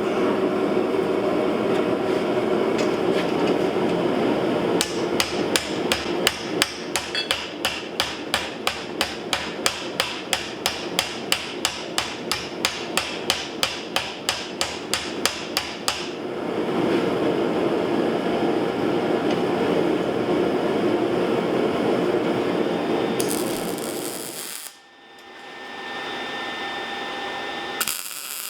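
A hammer striking steel on an anvil in an even rhythm of about three blows a second for some ten seconds, over a steady rushing noise that carries on after the hammering stops and cuts out briefly near the end.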